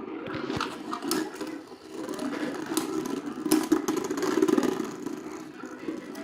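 Two Beyblade X spinning tops, Phoenix Rudder and Reaper Incendio, battling in a stadium: a steady whir of the spinning tops with sharp clacks and scrapes as they collide, several clacks clustered around the middle.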